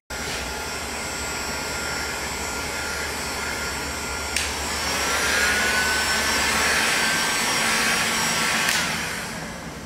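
Handheld heat gun running, its fan blowing a steady stream of hot air with a whine. There is a click about four seconds in, and the sound fades near the end.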